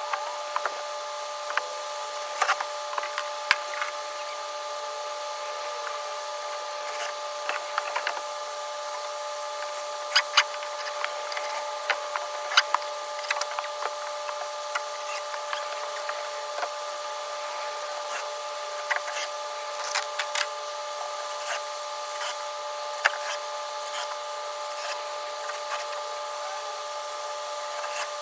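Scattered, irregular knocks and clicks of hand work on a wooden shed frame, over a steady high hum.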